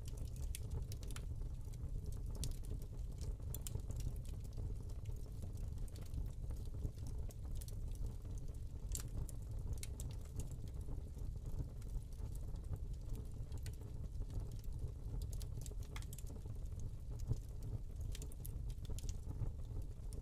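Hearth fire crackling, with irregular sharp pops and snaps over a steady low rumble.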